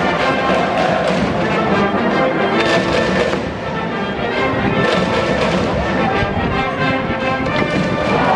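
A school brass band in the stands playing a cheering tune, with heavy drum beats under the horns and crowd voices mixed in.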